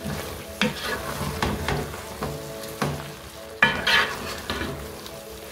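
A spoon stirring tripe in a pot of cooking tomato sauce: repeated scraping strokes against the pot over a steady sizzle.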